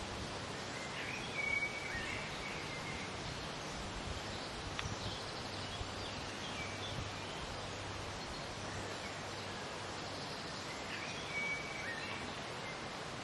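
Outdoor woodland ambience: a steady background hiss with short bird calls about a second in and again near the end.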